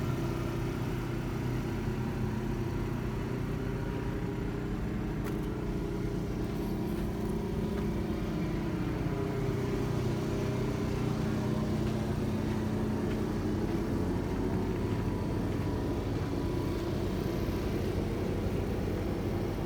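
An engine running steadily, a continuous low drone whose pitch drifts slightly partway through.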